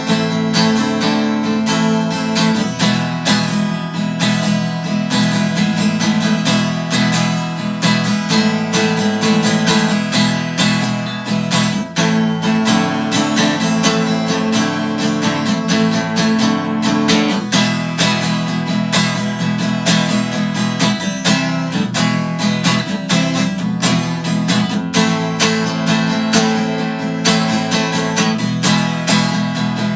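Acoustic guitar being strummed and picked, playing continuously with no singing.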